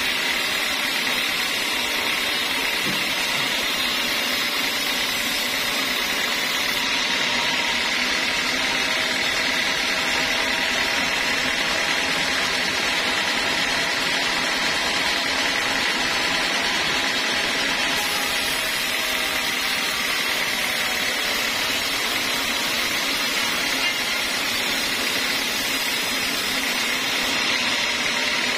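Homemade band sawmill running steadily with a constant whine, its blade sawing teak wood.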